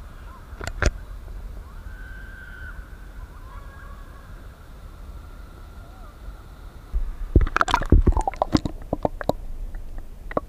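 River water sloshing and lapping against a camera held at the surface, over a steady low rumble. About seven seconds in there is a loud flurry of splashes and knocks as the camera dips under, and the sound turns muffled and underwater.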